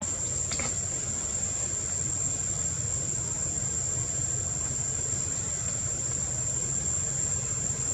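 Steady high-pitched drone of insects in the trees, one unbroken shrill tone, over a low steady rumble.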